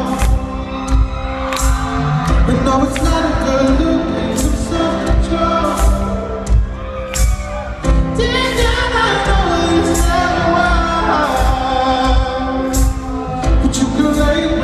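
Live pop song from a band and singer, with sung vocals over sustained chords and a steady drum beat, recorded from the audience in a large hall.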